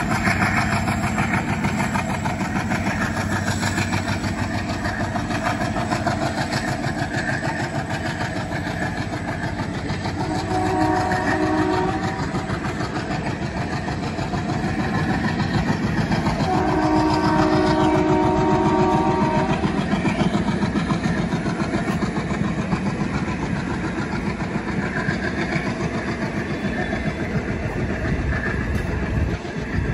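ALCO WDM3D diesel locomotive's 16-cylinder engine chugging as it moves its passenger train, with the continuous rumble and clatter of the coaches on the rails. A horn sounds briefly about a third of the way in, and again for longer a little past halfway.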